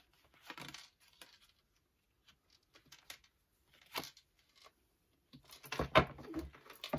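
Tarot cards being handled and dealt onto a table: soft rustles and slides of card against card, a sharp tap about four seconds in, and a busier run of slaps and scrapes near the end, the loudest about six seconds in.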